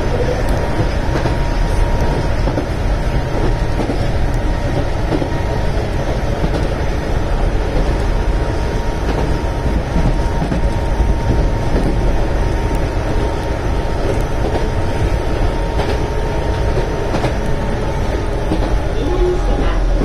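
Keihan 600 series two-car train running at about 55 km/h, heard from inside the driver's cab: a steady rumble of wheels on rail with a faint steady whine that drops slightly near the end.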